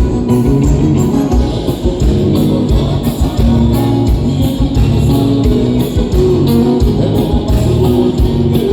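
Music led by guitar, with bass and a steady beat.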